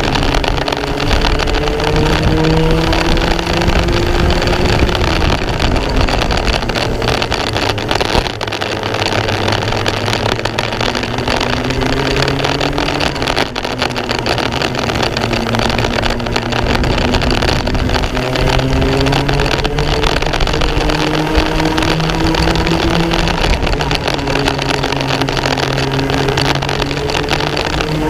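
Racing kart engine heard from onboard, its pitch climbing for several seconds at a time as it accelerates, then dropping away as it comes off the throttle, several times over. A steady rush of noise runs under it.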